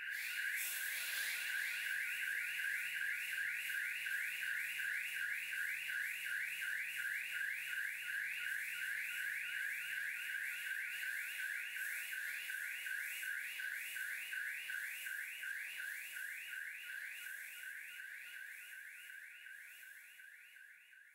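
Electronic intruder alarm siren going off, a fast upward sweep repeated about three times a second over a steady hiss, fading out near the end.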